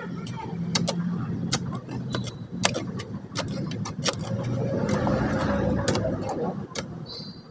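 Shovel blades scraping and clinking in gravelly, rocky soil as a trench is dug by hand, with many sharp separate clicks, over the steady hum of a running engine.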